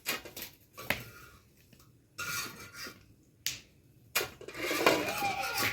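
Kitchenware clicking and knocking: a few separate sharp clicks, then a louder stretch of clatter near the end.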